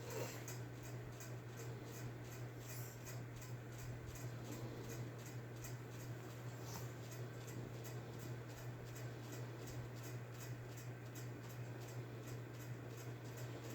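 A person snoring faintly in sleep, which the title puts down to the tonsils. A steady low hum and a fast faint ticking, about four ticks a second, run under it.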